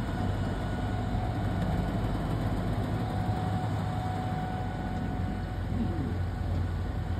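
Tour boat's motor running steadily: a low hum with a faint, thin, steady whine above it.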